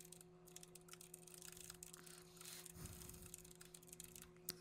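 Faint typing on a computer keyboard: a quick, irregular run of soft key clicks over a low steady hum.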